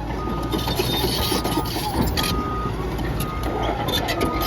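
Backup alarm on a Cat D6N bulldozer beeping about once a second, each beep a single steady half-second tone, over the steady low rumble of the diesel engine running. A few sharp clanks come in about two seconds in and again near the end.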